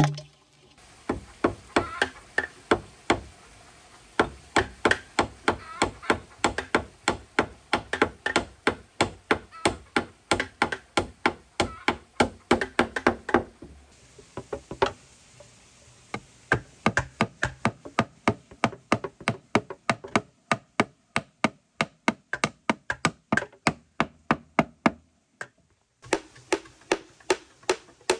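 Hammer driving nails into wooden planks: runs of sharp knocks, several a second, broken by a few short pauses.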